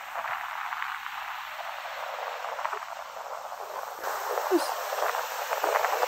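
Shallow surf washing over wet sand, with the crackling fizz of foam bubbles; it grows louder about four seconds in as a wave comes up over the sand.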